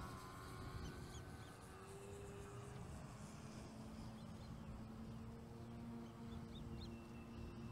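Faint, thin whine of a distant electric RC plane's brushless motor and propeller, the Precision Aerobatics XR-61 with its Thrust 60 motor, stepping down in pitch partway through over a low rumble of wind on the microphone. A few faint high chirps come and go.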